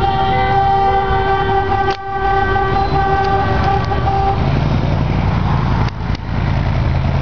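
Car horns held in a long steady honk over running car engines; the horns stop about four seconds in, leaving the low engine rumble, which rises in pitch.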